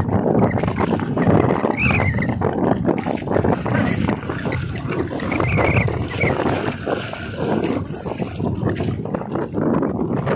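Choppy seawater sloshing and splashing around an outrigger boat's hull and a swimming spearfisher. A few short high-pitched squeaks come through about two seconds in and again around five to six seconds in.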